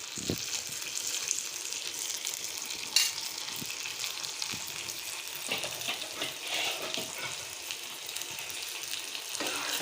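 A whole fish shallow-frying in oil and butter in a pan, sizzling steadily, with one sharp tap about three seconds in.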